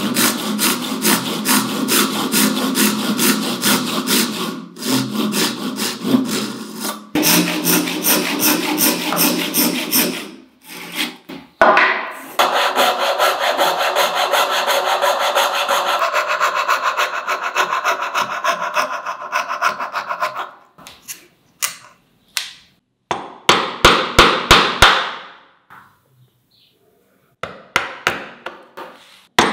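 Hand sawing of a wooden dovetail joint: a fine-toothed handsaw rasping through the wood in steady back-and-forth strokes, then a fret saw cutting out the waste with quicker, shorter strokes. Near the end, runs of sharp taps as a chisel is struck to chop out the waste.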